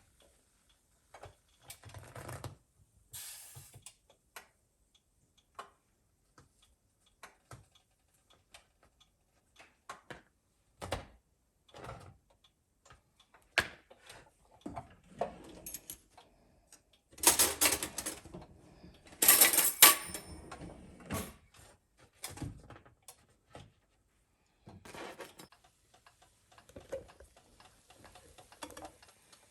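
Kitchen handling sounds: a scattered string of light clicks and knocks from utensils and dishes, with two louder, noisier bursts, each about a second long, about two-thirds of the way through.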